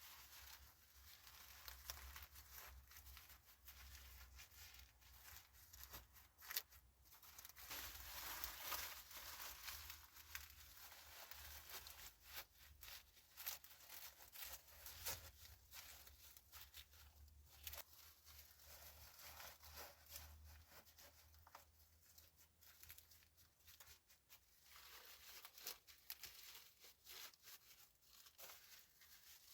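Faint, irregular rustling and crinkling with many small scattered clicks, like material being handled and torn.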